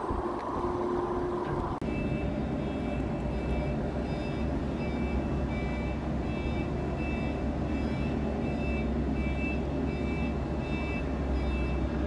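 Heavy machinery running, then, after a change about two seconds in, a forklift engine with a steady low rumble and a reversing alarm that beeps repeatedly in high tones.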